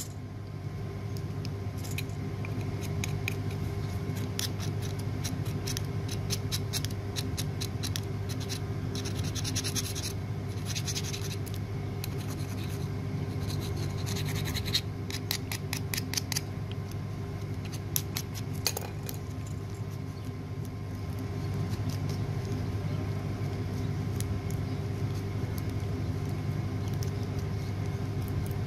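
Scraping and clicking of a small hand tool against lead battery terminal parts, in quick runs of ticks at a few points, over a steady low machine hum.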